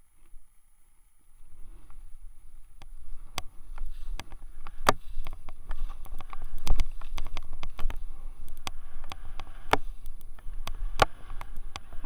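Skis sliding through deep powder snow: a steady swishing hiss with a low rumble, starting about a second in, broken by many sharp clicks and knocks.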